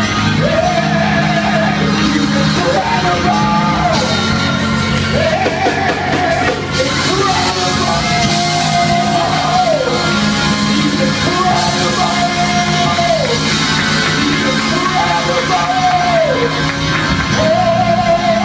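Loud band music with a lead voice singing long held notes that each fall away in pitch at the end, roughly one phrase every two seconds, over steady sustained low chords.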